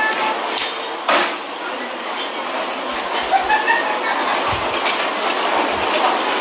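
Steady rushing hum of a busy airport security area, with faint distant voices and two sharp knocks about half a second and a second in.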